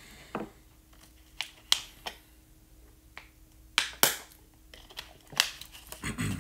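Irregular sharp clicks and taps, several of them spread unevenly, the loudest about four seconds in, over a faint steady hum.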